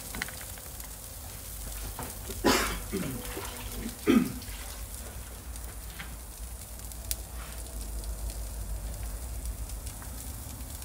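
Chicken burger patties sizzling steadily on a hot cast-iron grill grate over charcoal in a kamado grill, with two short louder sounds about two and a half and four seconds in.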